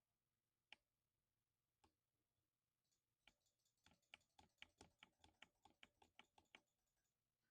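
Lubed 60% mechanical keyboard being typed on: two single keystrokes, then from about three seconds in a quick run of keystrokes at about five a second that stops a second before the end. Faint.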